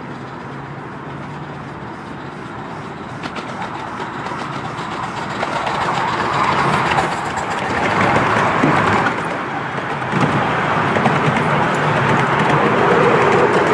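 Miniature steam locomotive, a model of an SR rebuilt 'Merchant Navy'-class 4-6-2, running toward and past with its train of open passenger carriages. The steam and running noise grows steadily louder as it nears and stays loud as the carriages roll by.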